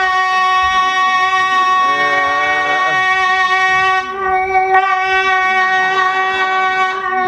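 A beatboxer's voice holding one long, steady, horn-like note, with a second, lower voice joining briefly about two seconds in.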